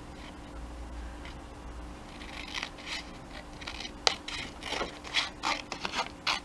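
Small craft scissors snipping through a thin printed book page: a run of short snips that starts about two seconds in and comes louder and faster toward the end.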